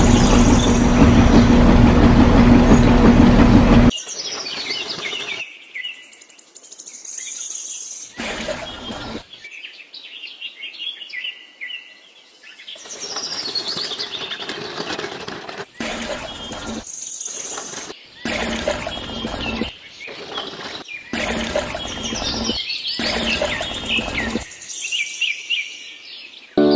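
Small songbirds chirping and twittering in quick, high notes, heard in short snippets with abrupt cuts between them. For the first few seconds a loud steady hum with a rushing noise covers everything, then cuts off suddenly.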